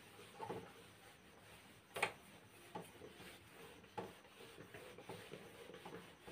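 Whiteboard being wiped clean with an eraser: faint rubbing with a few light knocks against the board, the loudest about two seconds in.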